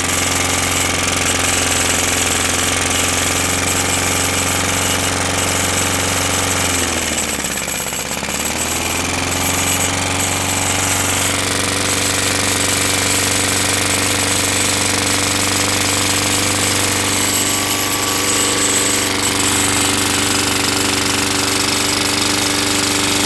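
Small lawn mower engine running steadily on a homemade fuel-vapor feed. About seven seconds in, its speed sags sharply and then recovers to the same steady running within about two seconds.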